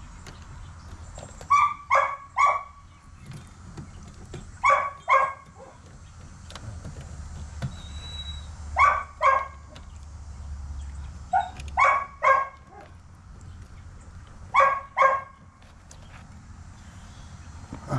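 Dogs barking in short runs of two or three barks, five runs a few seconds apart, over a steady low hum.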